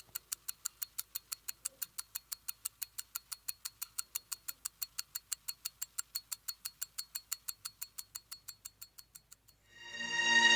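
Mechanical timepiece ticking evenly at about five ticks a second, fading out near the end, as a sustained musical chord swells in.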